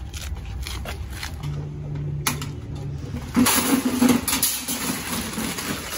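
Metal shopping carts rattling and clattering at a cart corral, with plastic tote bins knocking against a cart as they are set in it. Scattered knocks give way about halfway through to a louder, busier run of rattles.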